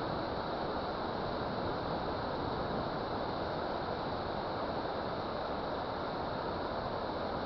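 Steady rushing of water pouring from a dam, an even, unbroken roar.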